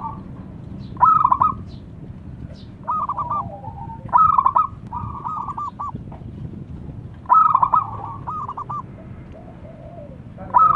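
Zebra dove (perkutut) cooing: short phrases of quick staccato notes, repeated every second or two.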